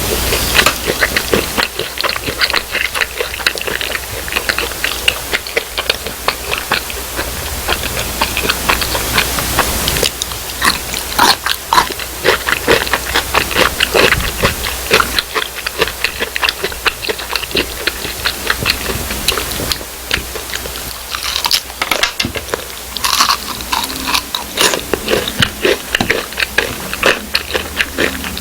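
A person biting into crispy fried food, crunching and chewing with many quick crackles, one after another in an uneven rhythm.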